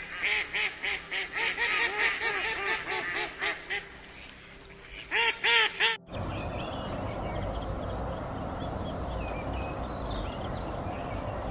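Mallard duck quacking in a fast run of about four quacks a second for nearly four seconds, then a short loud burst of quacks about five seconds in. About six seconds in the sound cuts abruptly to a steady rushing background noise with faint high chirps.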